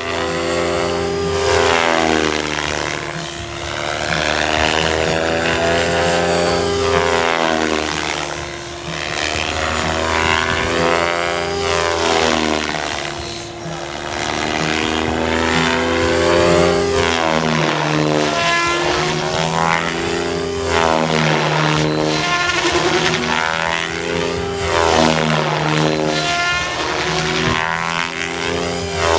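XLpower Nimbus 550 electric RC helicopter flying 3D aerobatics: the spinning rotor blades and motor make a buzzing tone whose pitch keeps rising and falling as the heli flips, swoops and passes.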